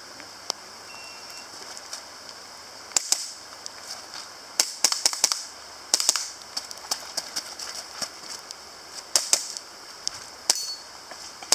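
Airsoft pistol shots: sharp snapping cracks fired in quick pairs and short strings from about three seconds in. A short faint beep about a second in is the shot timer's start signal.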